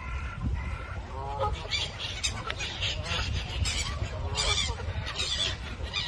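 A flock of Canada geese honking, many calls overlapping and repeating. From about two seconds in, shorter, higher calls join in. A steady low rumble runs underneath.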